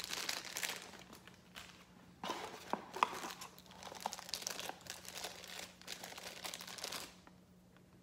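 Thin clear plastic bag crinkling and crackling in the hands as it is handled, in an irregular run of small crackles that stops about seven seconds in.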